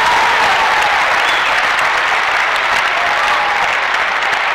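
Tennis crowd applauding at the end of a point, steady clapping with a few voices calling out.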